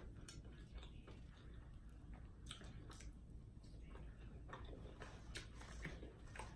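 Faint close-up chewing of food: soft, irregular mouth clicks and small crunches, about two a second.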